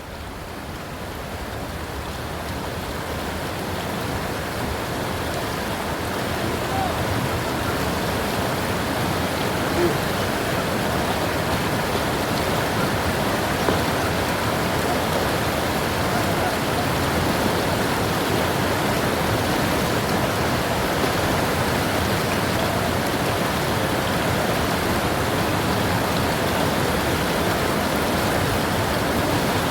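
Steady rush of moving water, building over the first several seconds and then holding even.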